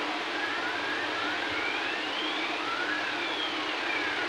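Steady hiss throughout, with a faint siren slowly wailing up and down.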